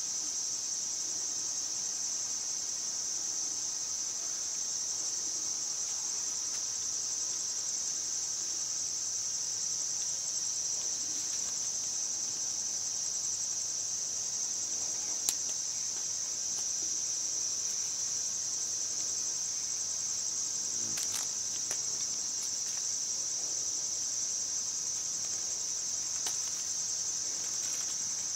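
Night-time insect chorus, a steady high-pitched trill of calling insects that never breaks. A few faint clicks fall about halfway through.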